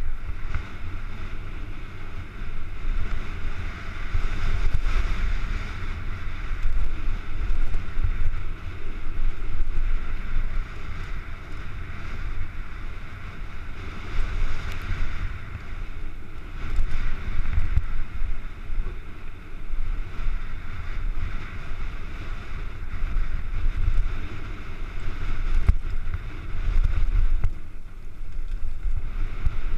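Wind buffeting a helmet-mounted camera's microphone during a fast mountain-bike descent, with the bike's tyres rumbling over a dirt and gravel trail; the rush swells and dips with speed.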